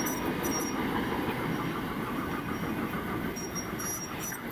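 Budd Silverliner IV electric multiple-unit train running away down the track, a steady rumble of wheels on rail. Short high-pitched squeaks come and go over it.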